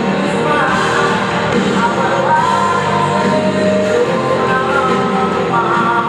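A live pop-rock band plays a song with a sung lead vocal over the band. It echoes through a large empty arena.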